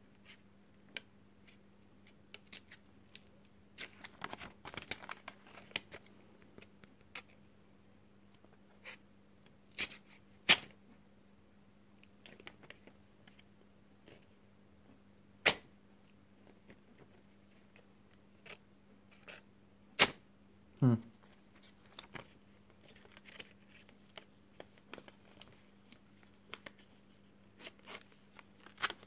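A Swiss Army knife blade slicing and tearing through a sheet of paper, with scattered sharp clicks and handling knocks. The paper tears rather than cutting cleanly, a sign that the edge is still not sharp enough. A faint steady electrical hum runs underneath.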